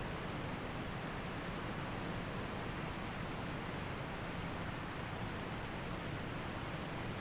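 Waterfall rushing: a steady, even wash of falling water with no change in level.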